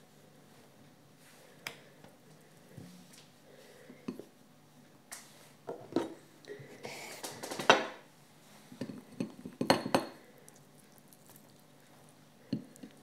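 Kitchen knife knocking on a wooden cutting board while slicing tomatoes, with light clinks of slices being laid on a plate. The knocks are irregular and come in two clusters in the middle, the loudest about eight seconds in.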